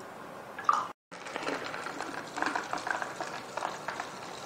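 Milk poured from a plastic jug into a narrow-necked glass bottle: a run of small irregular gurgles and clicks, starting after a brief drop-out about a second in.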